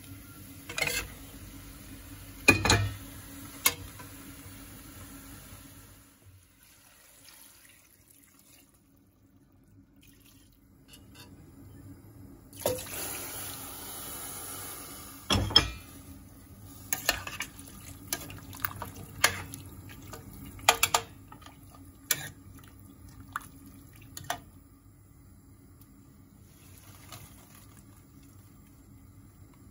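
Water poured into a steel cooking pot of stew, with a metal ladle clinking and knocking against the pot. There are a few knocks near the start, a short rush of pouring in the middle, then a run of clinks.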